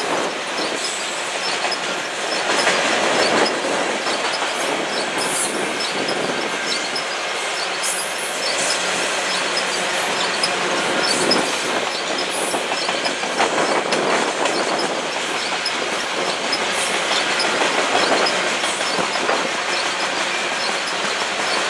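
Covered hopper cars of a potash freight train rolling past on steel wheels: a steady rumble and clatter of wheels over the rails. A thin, high wheel squeal sounds in the first couple of seconds.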